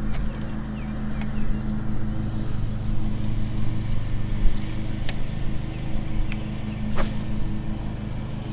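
Boat motor running steadily with a low, even hum, with scattered sharp clicks and knocks over it.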